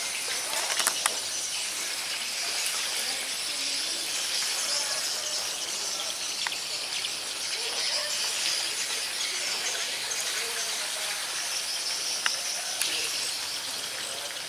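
Outdoor ambience dominated by a steady, high-pitched insect chorus, with a few faint bird chirps and an occasional sharp click.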